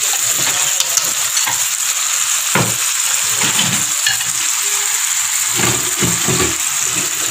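Small birds frying in sauce in a nonstick frying pan, sizzling steadily, with a few scrapes and knocks of chopsticks stirring them, about two and a half seconds in and again a little before the end.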